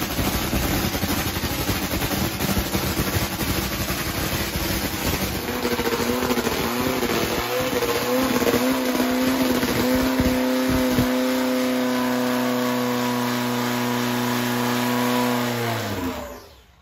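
Top Fuel nitro drag motorcycle engine running in a pit warm-up. It sounds rough at first, settles into a steady note about five seconds in, then shuts off with a falling pitch near the end. The crew judge it to sound better after a motor change and to shut off cleaner.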